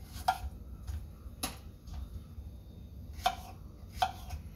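Small kitchen knife slicing a strawberry on a wooden cutting board, the blade tapping the board in four sharp knocks spaced unevenly, with a few fainter ones between.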